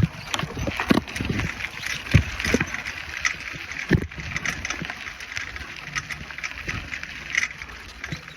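Bicycle being ridden over a bumpy road: irregular knocks and thumps over a steady rustle.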